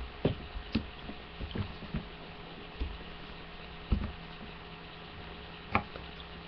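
Scattered soft taps and knocks, about seven in all, from hands working Play-Doh modelling clay and its tools on a table, the sharpest just past the middle and again near the end, over a faint steady hum.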